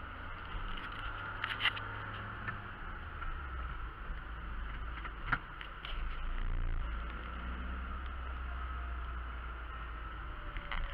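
Car engine and tyre noise heard from inside the cabin while driving, a steady low hum whose note shifts and swells about six seconds in, with a couple of light clicks.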